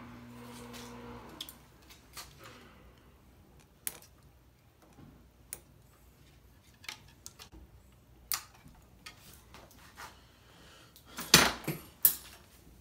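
Scattered small clicks and knocks of hands and a tool working on wiring at a workbench, ending in a few louder knocks. A brief low hum sounds in the first second.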